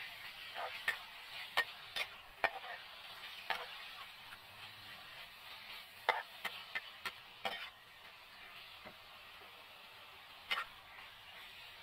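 Pork pieces and spice paste sizzling in oil in a frying pan while a metal spatula stirs them, clacking and scraping against the pan. The clacks are frequent at first and thin out over the last few seconds.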